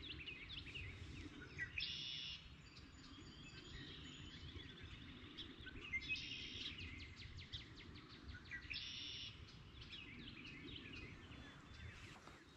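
Several songbirds chirping and singing, with one bird's short bright trill heard three times, about every three to four seconds, over a low steady rumble.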